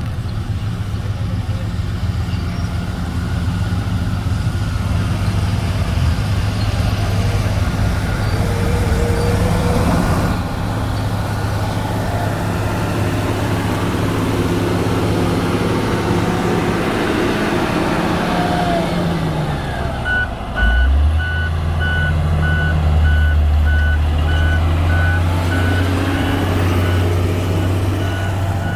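Komatsu GD655 motor grader's diesel engine running steadily; about two-thirds through its pitch drops, there is a thump, and the engine settles as a reversing alarm starts beeping about once a second.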